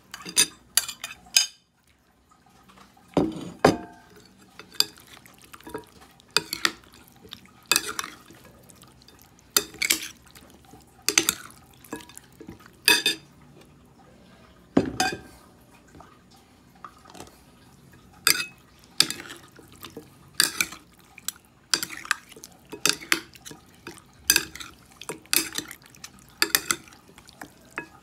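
Metal spoons clinking and scraping against a ceramic bowl while mixing raw chicken wings in their marinade. The sharp clinks are irregular, about one every second or two, and come quicker near the end.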